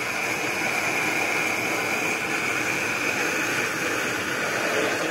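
Gas blowtorch burning with a steady hiss, its flame heating the head of a vintage tractor's hot-bulb engine until it glows red, the preheating needed before the engine can be started.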